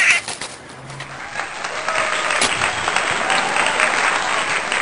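A hooded crow's harsh caw right at the start, then a dense, steady crackling hiss full of small ticks from about a second and a half in.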